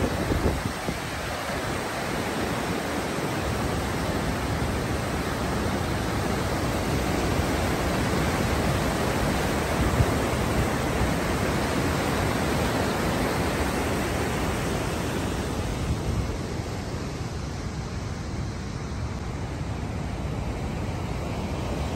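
Whitewater of a fast, rocky mountain river rushing steadily over boulders, turning softer and duller near the end.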